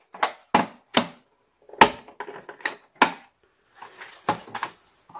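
Plastic latch clamps around the head of an Aquael Ultramax 2000 canister filter being unsnapped by hand: a series of sharp, irregularly spaced clicks and knocks.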